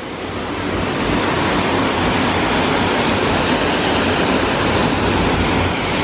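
Steady rushing of a waterfall cascading over rocks into a river pool, growing a little louder over the first second.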